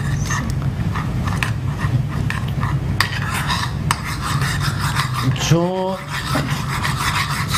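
Metal spoon stirring and scraping melted sugar caramel around a pan, an irregular rasping scrape with small clicks, over a steady low hum.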